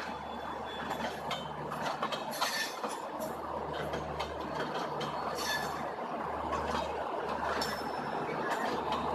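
Stainless-steel LHB passenger coaches rolling past at speed: a steady rumble of wheels on rail, with irregular clatter over the joints and a few brief high-pitched metallic squeaks from the wheels.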